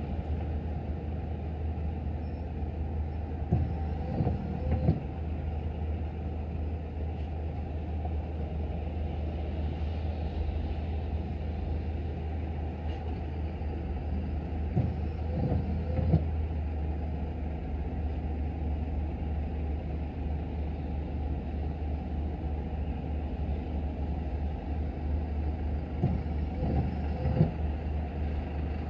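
Car in slow, stop-and-go city traffic: a steady low engine and road hum, with a few brief louder bumps about four, fifteen and twenty-seven seconds in.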